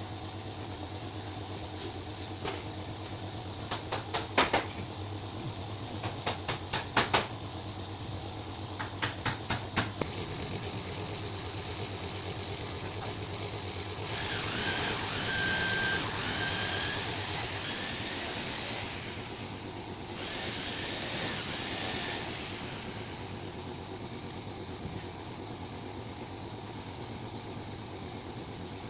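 Steady machine hum with three quick runs of sharp clicks, a few at a time and a few seconds apart, followed by two stretches of hissing noise in the second half.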